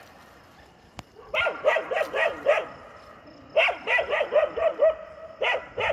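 Stray dogs barking in three bouts of quick repeated barks, perhaps at a dog from another area that has come near.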